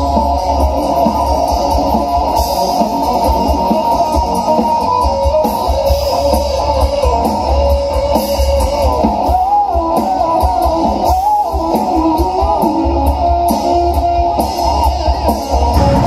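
Live rock band playing loudly through a stage PA: electric guitar lead over bass guitar and a drum kit.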